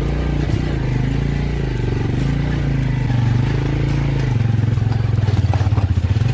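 Motorcycle engine running steadily, its pitch rising and falling a little as it is ridden along a rocky dirt trail.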